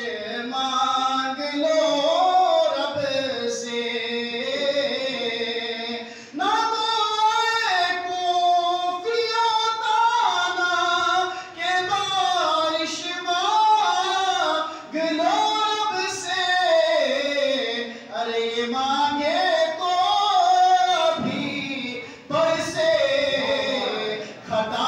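A man singing an Urdu manqabat, a devotional poem in praise of the Prophet's family, unaccompanied into a microphone. He sings it in long melodic phrases with held, wavering notes and short breaks between the phrases.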